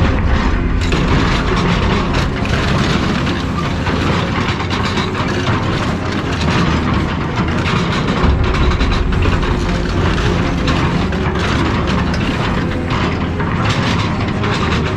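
A heavy machine's engine running steadily under load while scrap car bodies are crushed and torn, with frequent cracks, crunches and clanks of metal.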